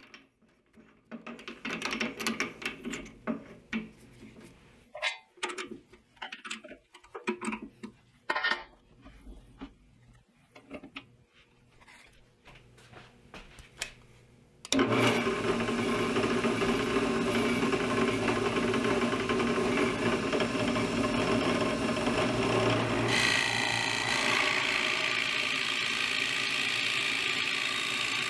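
A Forstner bit is handled and fitted into a drill press chuck, with scattered metallic clicks and taps. About halfway the drill press starts suddenly and runs steadily, and later the 1 1/8 inch Forstner bit bites into the maple board and cuts a hole.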